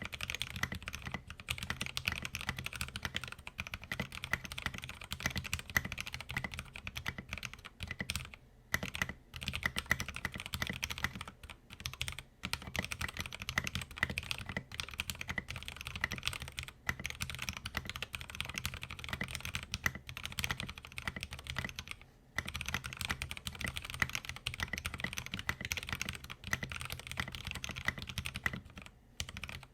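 Continuous fast typing on an LTC Nimbleback 65% mechanical keyboard with factory-lubed Gateron Cap Milky Yellow linear switches and thin Tai-Hao Sakura keycaps, dense key clacks with a few short pauses.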